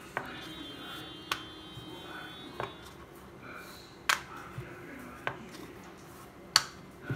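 About six sharp taps and clicks, one every second or so, as a thin disc of rolled rava dough is handled and flipped on a wooden chopping board; the loudest comes near the end.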